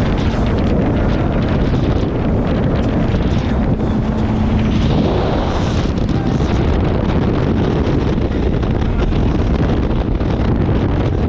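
Strong wind buffeting the microphone on a small boat: a loud, rough, continuous rush, with a faint steady hum underneath that fades out about five seconds in.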